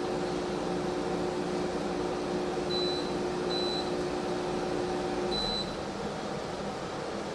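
Air conditioner compressor humming steadily, then shutting off about five seconds in. Three short high electronic beeps come just before and as it stops.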